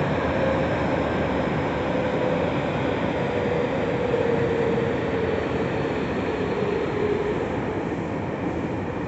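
Tokyu 3000 series electric train with Hitachi IGBT inverter drive running, heard from inside the passenger car: a steady rumble of wheels and running gear. A mid-pitched tone wavers, dips slightly and fades out about seven seconds in, and the overall sound eases a little toward the end.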